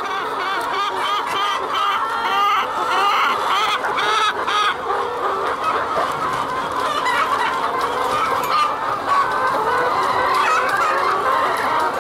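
A large flock of brown laying hens clucking and calling together, a dense, continuous chorus of overlapping calls.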